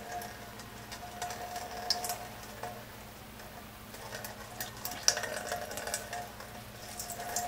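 Whey trickling and dripping into a stainless steel colander as a cheesecloth bundle of cottage cheese curds is squeezed by hand: a thin patter with small ticks, over a faint hum that comes and goes.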